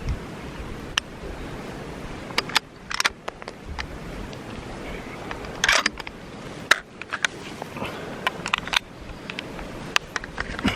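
Irregular clicks, taps and short scrapes of handling noise close to the microphone, as the hunter moves and handles his gear, over a faint steady wind hiss. The clicks come in small clusters, the loudest about three and about six seconds in.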